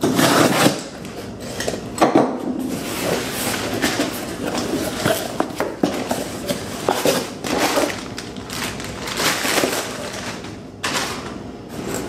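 A knife slits the packing tape on a cardboard box, then the cardboard flaps are pulled open and the packing inside is rustled and shifted as the box is unpacked. The scrapes and rustles come irregularly, the loudest in the first second.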